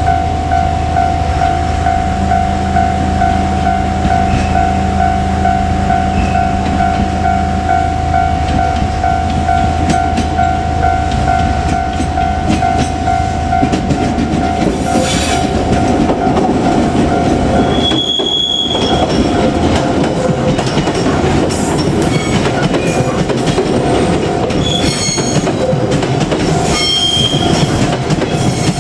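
A level-crossing alarm rings with a steady, repeating two-tone pulse for the first part. A JR Kyushu 817 series electric train then comes through the crossing, its wheels rumbling on the rails louder and louder, with rail-joint clatter and short high wheel squeals in the second half.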